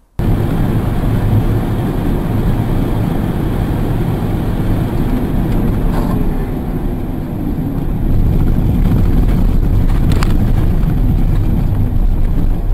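Steady rumble of tyre and wind noise from a moving car, picked up by a dashcam microphone inside the cabin. It gets louder about eight seconds in, with two brief clicks, near six seconds and near ten.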